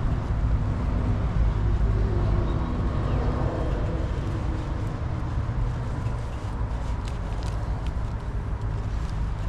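Harley-Davidson V-twin motorcycle engine running steadily at low revs.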